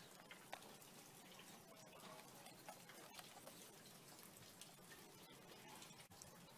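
Near silence: faint hiss with a few soft, scattered clicks from the cassette player being handled.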